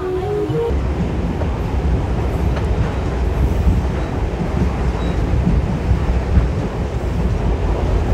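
Local passenger train running along the track, heard from an open coach doorway: a steady, loud rumble of wheels and carriages.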